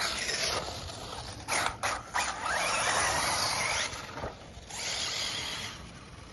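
Fast remote-control car's motor and drivetrain whining in several high-pitched bursts as it speeds about, one rising in pitch about two and a half seconds in.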